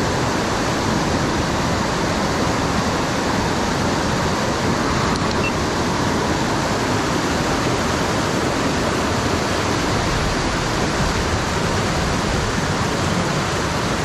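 Steady, loud rushing of fast-flowing water, an even roar without breaks.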